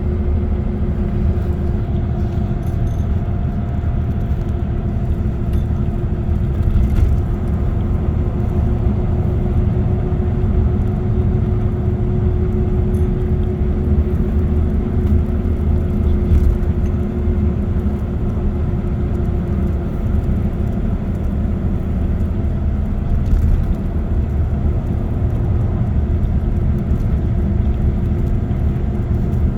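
Car cruising at expressway speed: a steady low road and engine rumble with a constant hum.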